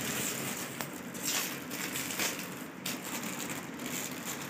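Plastic gift packaging crinkling and rustling in irregular crackles as it is handled and unwrapped.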